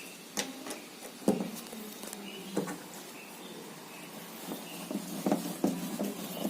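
Scattered clicks and knocks of a screw being set and driven by hand into a washing machine's back cover, with one sharp knock about a second in and a quicker run of small clicks near the end.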